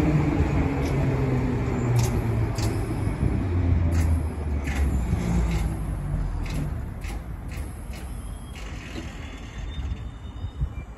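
HÉV suburban electric train running past a platform while slowing, its motor tones falling slowly in pitch, with sharp clicks from the running gear scattered throughout; the sound eases off over the last few seconds.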